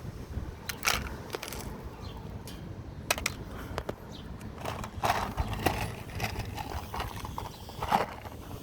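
Scattered clicks and knocks, a few sharper than the rest, over a steady low rumble.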